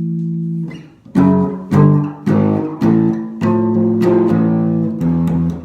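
Guitar music: a held chord fades about a second in, then a run of chords is struck roughly every half second, each one ringing on.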